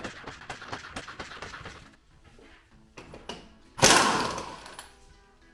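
Rapid mechanical clicking for about two seconds, then about four seconds in a loud burst of compressed-air hiss from an air tool at the wheel hub, trailing off over about a second.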